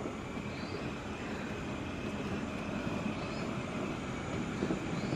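Steady outdoor background rumble, even and unbroken, with a few faint short high chirps over it.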